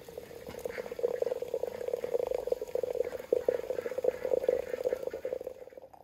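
Hot water pouring from a samovar's tap into a glass teapot: a steady, fluttering pour held at one pitch, which stops shortly before the end as the tap is closed.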